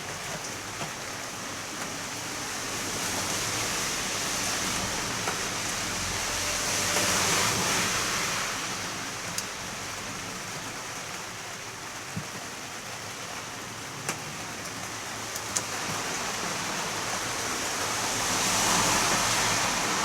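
Heavy rain falling steadily, growing heavier twice in slow surges, with a few sharp ticks of drops striking a surface.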